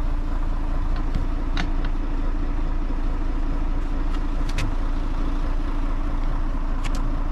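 A Rosenbauer fire truck's engine runs steadily, with a few faint clicks.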